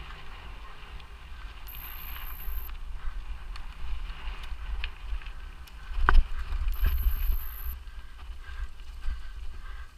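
Mountain bike being ridden over a rough forest trail: a steady low rumble with scattered rattles and clicks from the bike, and one sharp knock about six seconds in. Twice a high, steady buzz lasts about a second.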